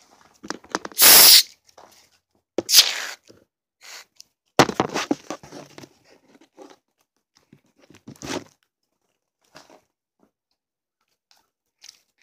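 Aerosol shaving cream sprayed from the can in several short, loud hissing bursts, with quieter squishing of sticky slime between them as the foam is worked in.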